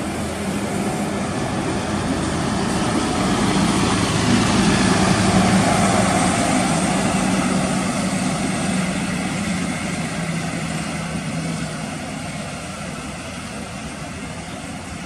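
Diesel engine of a tri-axle coach running at low speed as the bus drives slowly past, a steady low hum that grows louder to a peak about five seconds in, then slowly fades as it moves away.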